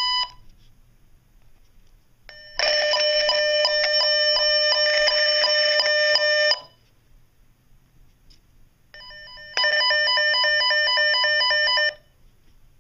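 Tone-tracing probe at the end of a coax cable, its speaker sounding the tone that a Coax Clarifier tester sends down the cable. First comes a pulsing electronic tone for about four seconds, then after a pause a faster two-pitch warble for about two seconds, as the tester is switched between its tone patterns. Hearing the tone means the probe has picked up the signal on that cable.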